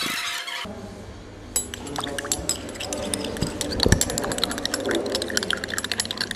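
Café crockery and glassware clinking: many quick, sharp clinks of cups, saucers and spoons over a low murmur of voices. A hissing noise cuts off abruptly in the first second.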